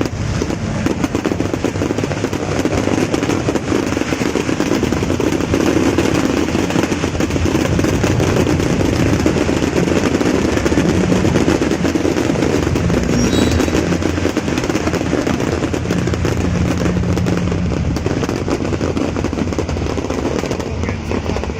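Fireworks going off in a dense, unbroken barrage of rapid crackling and popping at a steady loudness.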